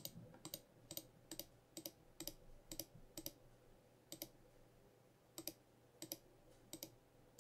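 Faint clicks of a computer mouse button, about two a second with a pause of about a second midway, as mesh vertices are shift-clicked one at a time to select them.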